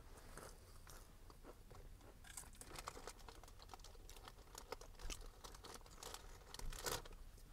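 Faint, scattered crackling and rustling with small clicks, like close handling noise in a small room.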